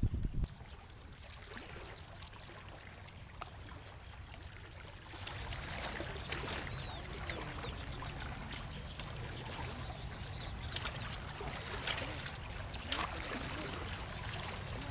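Wind blowing over the microphone and small waves lapping at the lakeshore, growing louder about five seconds in, with a few short high chirps twice around the middle.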